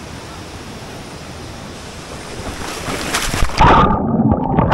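Steady rushing water that swells louder about two and a half seconds in, then turns suddenly muffled with a low hum near the end.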